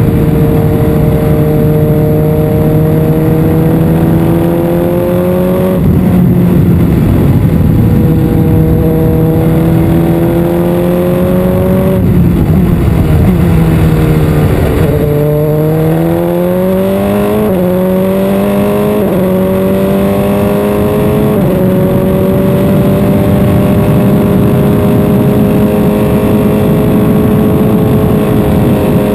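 Single-seater race car engine heard from the onboard camera at speed, its note climbing and stepping at gear changes. About halfway through the pitch falls away under braking, then climbs through three quick upshifts and holds steady near the end.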